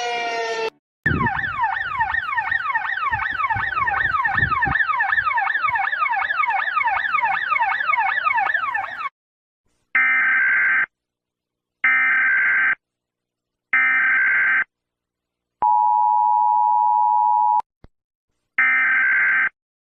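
A sequence of electronic emergency-alert tones. A falling siren tone ends just after the start, then about eight seconds of rapid repeating downward sweeps with low thumps under them. After a pause come three one-second beeps two seconds apart, a two-second steady two-tone attention signal and one last beep.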